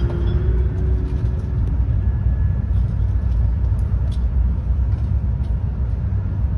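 Tokaido Shinkansen train running, heard from inside the passenger car as a steady, loud low rumble.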